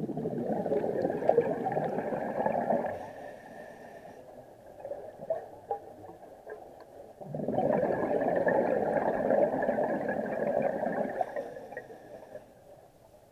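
Scuba diver's regulator breathing underwater: two long exhalations of bubbling exhaust, each three to four seconds, with a quieter stretch between them.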